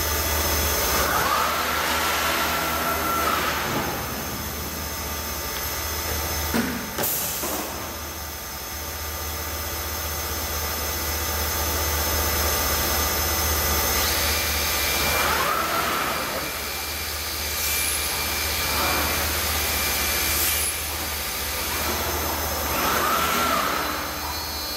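Homag BAZ 20 CNC woodworking machining centre running: a steady low hum under the whine of its axis drives, which rises, holds and falls several times as the head travels. A few sharp clicks come about seven seconds in.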